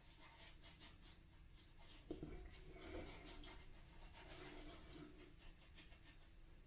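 Faint rubbing of oiled hands over beard and moustache stubble: a quick run of soft, scratchy strokes.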